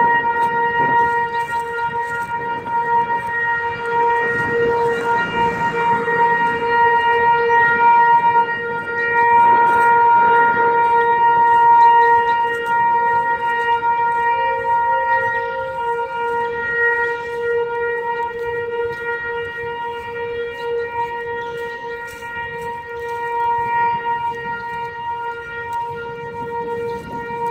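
ASC T-135 outdoor warning siren sounding its steady tone, one held pitch that swells louder and eases off again. The siren's rotator is broken.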